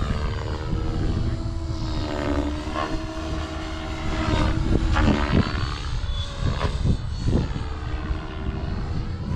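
Blade Fusion 550 electric RC helicopter in flight, spinning at a little more head speed: the rotor and motor whine rises and falls in pitch as it maneuvers and passes, with several sharp swooshes from the rotor blades.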